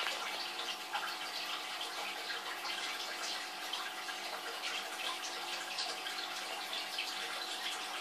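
Steady bubbling and fizzing of an aquarium's air-stone bubble column breaking at the water surface, with a faint steady hum underneath.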